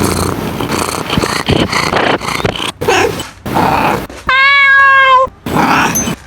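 Domestic cat meowing: rough, noisy cat sounds, then one long, clear meow just past the middle and a shorter call near the end.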